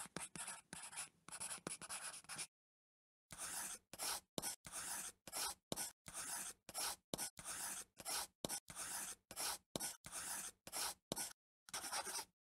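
Pen strokes scratching across a drawing surface, one short stroke after another at about two a second, with dead silence between strokes and a longer pause about two and a half seconds in.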